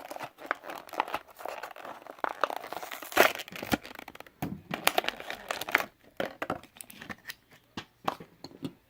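A die-cast toy car's packaging being torn open by hand: plastic crinkling and cracking with tearing of card, in irregular crackles and sharp clicks.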